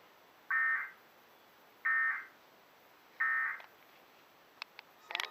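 Emergency Alert System end-of-message data bursts: three short, shrill digital chirps, about a second apart, signalling the end of the alert. A few sharp clicks follow near the end.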